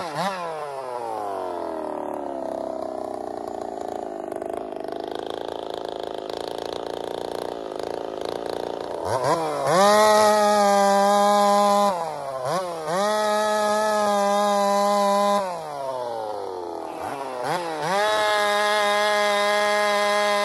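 Ported, big-bore Holtzfforma 372 two-stroke chainsaw, its ignition timing backed off over suspected pre-ignition. Its revs fall off at the end of a cut and it runs slow for several seconds. About nine seconds in it revs back up to full throttle and cuts through a log, dipping briefly twice before running flat out again near the end.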